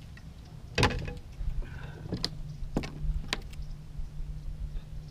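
Handling noises in a kayak as a freshly caught fish is weighed: a few sharp knocks and clicks, the loudest about a second in, over a steady low hum.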